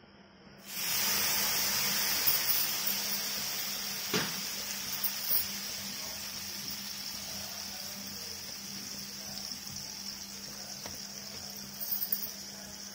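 Water on a hot cast-iron dosa tawa hissing and sizzling. It starts suddenly about a second in and slowly dies down as the water boils off.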